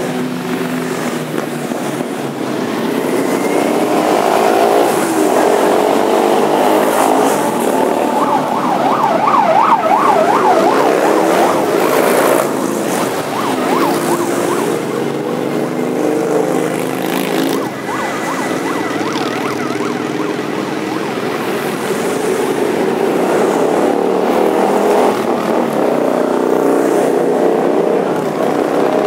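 A column of motorcycles, sport bikes and cruisers, riding past one after another at low speed. Their engines overlap continuously, with the pitch rising and falling as riders open and close the throttle, loudest about ten seconds in.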